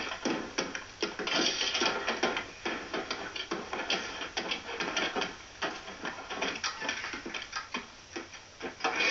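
Irregular clicking and clattering of tools and parts from a comedy film's soundtrack, as a television set is worked on, with faint music behind. It plays thinly through laptop speakers.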